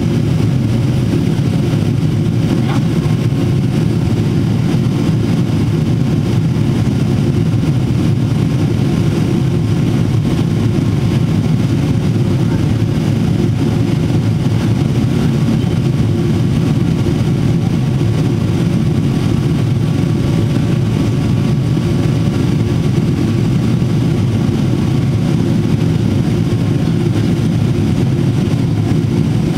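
Steady cabin drone of a Boeing 777-300ER in flight, heard from inside the cabin: GE90 engine and airflow noise, a constant low rumble with a faint steady hum.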